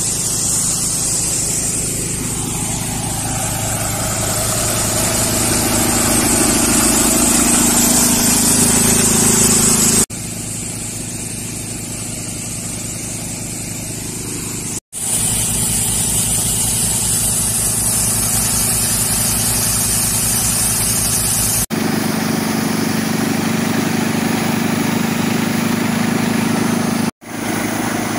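Tractor-driven air compressor running steadily, the Mahindra 475 DI tractor's diesel engine chugging underneath, with a loud hiss of compressed air blasting from the hose nozzle. The mix changes abruptly several times, the hiss strongest in the first third and again in the middle.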